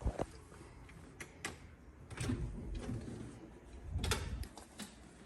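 A few scattered knocks and clicks over bursts of low rumbling handling noise, as things are picked up and moved about.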